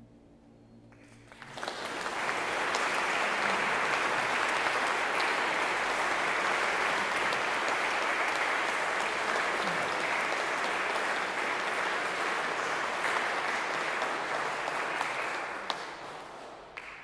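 An audience applauds steadily for about fourteen seconds and fades away near the end. It starts about a second and a half in, as the last notes of the music die away.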